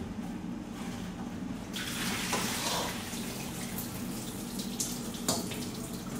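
Water poured out of a stainless steel pot into a kitchen sink, the splashing starting about two seconds in and running on, over a steady low hum. Two light clanks come near the end.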